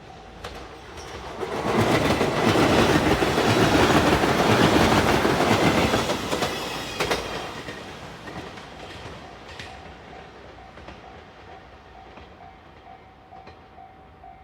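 A five-car JR Shikoku 8000 series electric limited express passing at speed. It comes up loud about two seconds in, its wheels clattering rapidly over the rail joints, and fades away after about six seconds. A level-crossing warning bell dings in a rapid, steady rhythm, heard again under the fading train.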